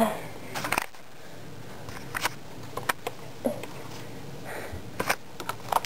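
A few scattered sharp clicks and knocks, spaced irregularly about a second apart, over a faint steady background hiss.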